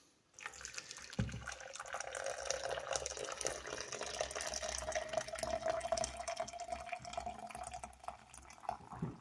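Boiling water poured from a kettle into a jug: a steady splashing stream whose pitch rises slowly as the jug fills toward its max line. A light knock sounds about a second in.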